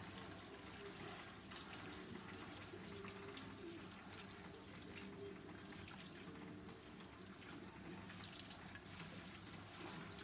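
Salon backwash shower spray running water steadily over hair and into the sink, a faint even hiss.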